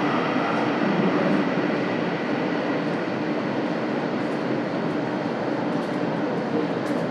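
Steady ambience of a railway station platform: a continuous mechanical rumble and hum from trains and station machinery, with a few faint light clicks near the end.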